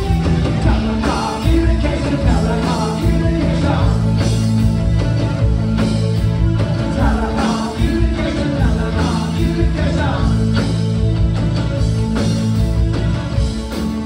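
Live new wave rock band playing loudly: synthesizer keyboard, drum kit, bass and electric guitar, with a lead vocal sung over held keyboard notes.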